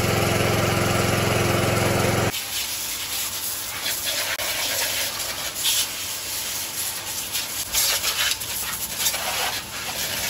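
Water-washer pump motor running with a steady hum while its jet sprays a motorcycle; about two seconds in it cuts off abruptly to the hiss and spatter of water spraying onto the bike.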